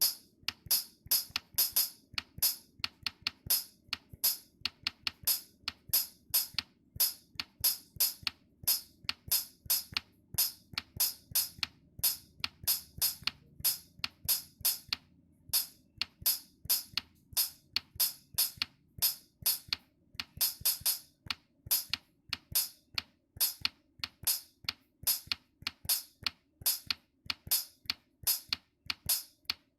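Music with a steady drum-machine beat, mostly crisp hi-hat-like ticks at about two or three a second, with a faint low hum beneath.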